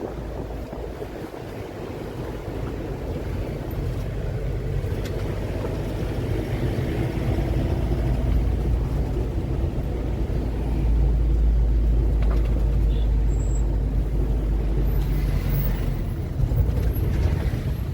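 A vehicle engine running with a steady low rumble that grows gradually louder, stepping up about eleven seconds in.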